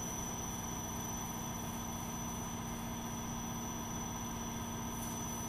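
Soft biscuit production line machinery running: a steady mechanical drone with a constant high-pitched whine.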